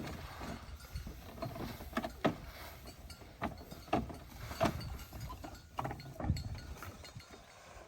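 Irregular clinks and knocks of hand tools on metal parts, a sharp strike every half second to a second, over a low steady rumble.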